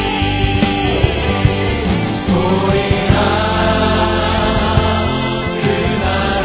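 Christian worship music: voices singing a sustained melody over a band accompaniment with steady bass notes and a regular drum beat.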